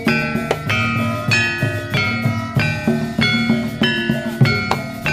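Javanese gamelan playing jaran kepang music: bronze metallophones struck in a steady, repeating pattern, each note ringing on, over deep drum strokes.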